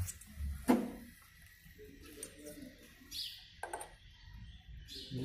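Steel pistons clinking against the metal rotor of a hydraulic PTO pump as they are handled and set into its bores: two sharp clinks, about a second in and again a few seconds later.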